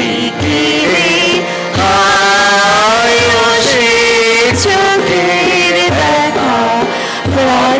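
A mixed chorus of men and women singing a Bengali song in slow, drawn-out, gliding melody lines, accompanied by harmonium and a hand drum that gives a slow, steady low beat.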